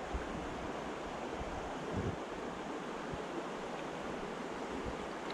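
Shallow stream running over a stony bed: a steady rush of flowing water, with a few low bumps of wind or handling on the microphone, the largest about two seconds in.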